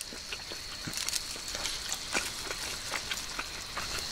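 Seafood cooking in a skillet over campfire embers, with scattered small pops and crackles over a steady sizzle.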